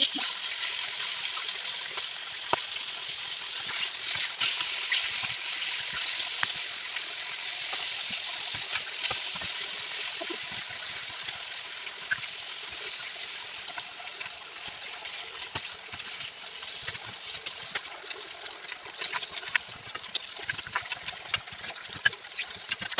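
Bacon sizzling in a frying pan: a steady hiss with scattered small pops and crackles, easing slightly about halfway through.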